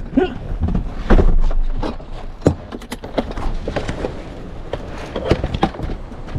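Irregular clicks and knocks, several every second, with the loudest knock about a second in.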